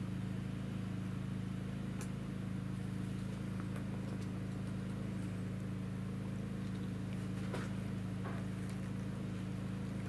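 A steady low machine hum, with a few faint clicks from pliers twisting tie wire.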